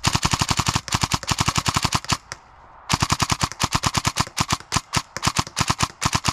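Airsoft M4 electric rifle with a dual-sector gearbox firing a rapid string of shots, about nine a second, with the gearbox whirring under each crack. The fire breaks off for under a second about two seconds in, then resumes.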